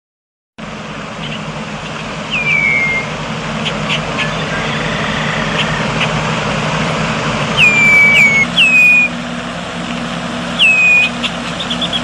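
Red-winged blackbird calling: about five short whistles, each sliding down and levelling off, a few sharp ticks, and a quick run of clicks near the end. Under the calls runs a steady low rumble.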